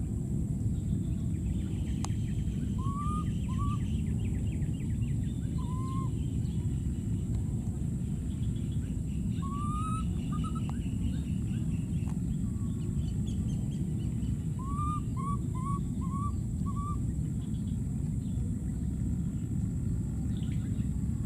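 A baby macaque giving short rising coo calls in small groups of one to five, over a steady low rumble.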